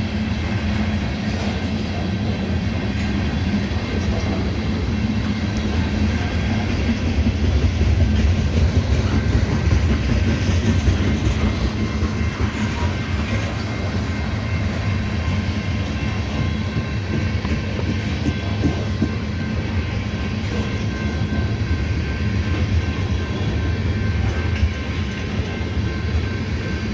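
Tank cars of a freight train rolling past, a steady rumble of wheels on the rails.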